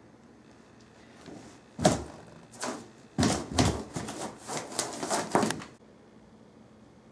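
Rubber balloon handled close to the microphone, making a run of about ten irregular knocks and rubbing noises over some four seconds before stopping.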